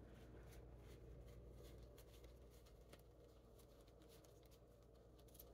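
Near silence: quiet room tone with a faint steady low hum.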